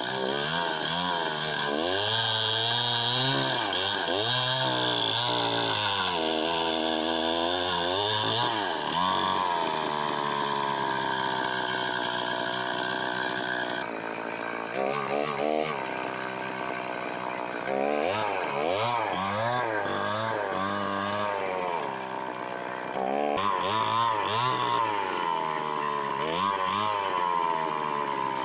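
Two-stroke chainsaw running at high revs, its pitch dipping and climbing back again and again as the throttle and load change. It breaks off abruptly twice, about halfway and about two-thirds through.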